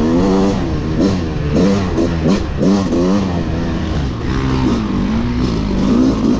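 Two-stroke enduro dirt bike being ridden hard, its engine revving up and dropping back again and again as the throttle is worked and gears change.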